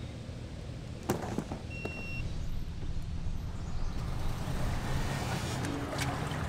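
Low steady engine rumble, with a sharp click about a second in and a short high beep just before two seconds; the rumble grows louder from about four seconds.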